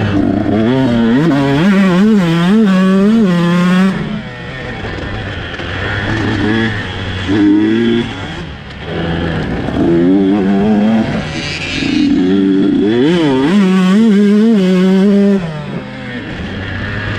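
Dirt bike engine revving hard and climbing through the gears, its pitch rising and dropping in waves. The throttle backs off about four seconds in, again around halfway, and once more near the end, then picks up again.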